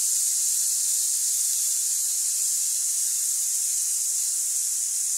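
Chopped tomatoes, capsicum and onion frying in hot mustard oil in a kadhai, giving a steady high-pitched sizzling hiss.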